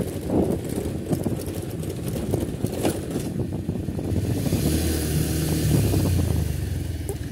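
A motor vehicle passes close by over general street noise: its engine hum and tyre hiss build a little past halfway, peak, then fade.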